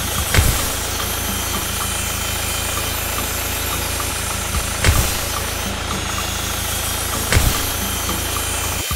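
Steady engine-like drone of a mini tractor running with its spinning disc attachment, broken by three short knocks.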